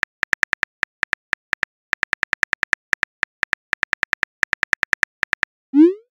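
Phone keyboard typing sound effect: a quick run of small tap clicks, several a second with short pauses, as a text message is typed. Near the end comes one short rising swoosh, the message-sent sound.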